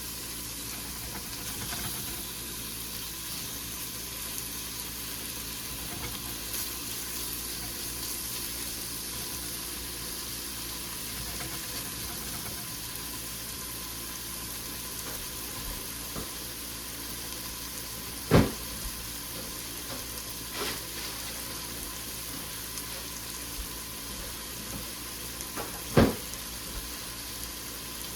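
Chicken pieces frying in hot oil in a pan over medium-high heat, a steady sizzle. Two sharp knocks, the loudest sounds here, come about two-thirds of the way in and near the end.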